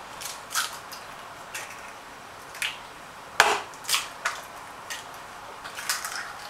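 Eggs being cracked into a blender jar: a string of short, sharp taps and shell cracks, with the loudest about three and a half seconds in.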